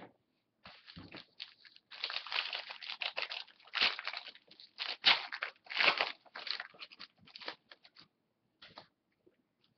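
Foil wrapper of a hockey card pack crinkling and tearing as it is opened by hand, in irregular crackling bursts for several seconds.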